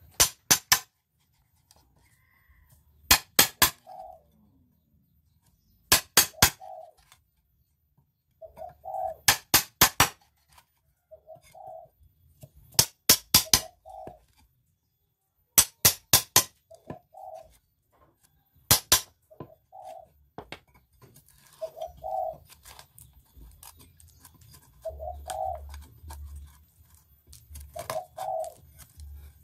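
Mallet striking a hand chisel into teak, in quick groups of two to four sharp blows every few seconds. A dove coos repeatedly between the groups.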